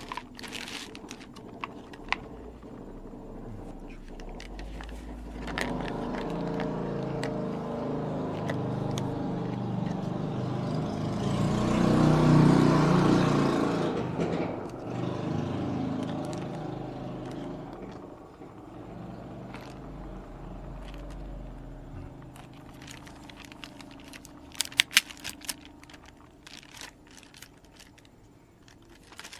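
Plastic bags crinkling and hard plastic gummy molds clicking as they are handled, with a cluster of sharp clicks near the end. Under it, a steady engine-like hum swells to its loudest about halfway through and then fades away.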